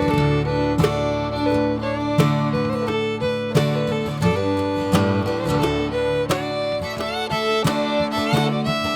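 Background music: a fiddle melody over strummed acoustic guitar, in a bluegrass or country style.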